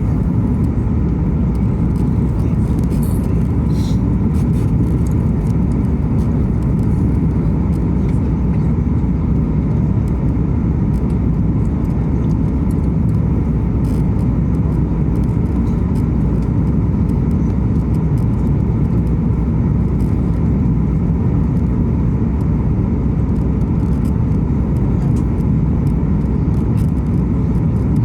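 Steady low roar inside an airliner cabin: jet engine and airflow noise during the landing.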